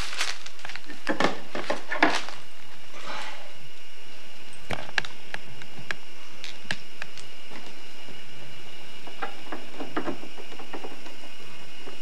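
Rustling of paper and plastic packaging for the first few seconds, then scattered light clicks and taps as small hardware pieces for a plastic toddler slide are handled, with a brief rustle again near the end.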